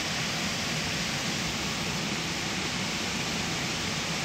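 Steady rushing water noise as water washes over gravel in a plastic gold pan.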